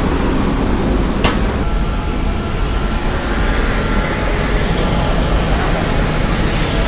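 Steady roadside traffic noise, with a single sharp click about a second in.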